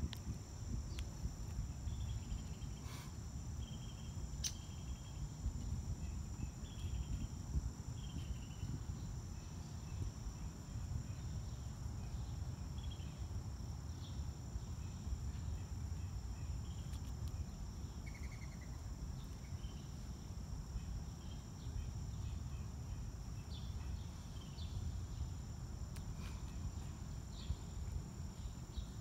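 Steady high-pitched insect trilling, with short faint chirps scattered through and a low rumble underneath. A couple of faint sharp ticks come a few seconds in.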